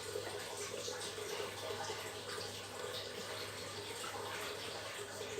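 Steady background noise: an even hiss with a low hum underneath.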